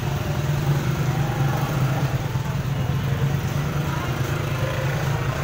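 Motorcycle tricycle's small engine running steadily with a constant low hum.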